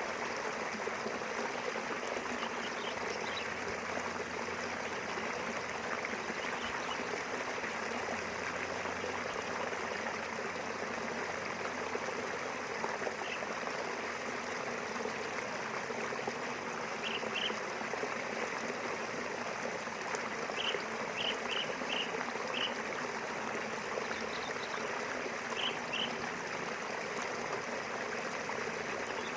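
River water flowing and splashing steadily. Short, faint, high chirps come now and then, in small clusters mostly in the second half.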